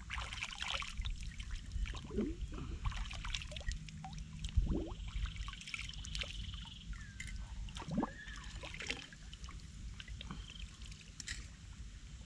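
Shallow water trickling and splashing, with scattered drips and small plopping splashes.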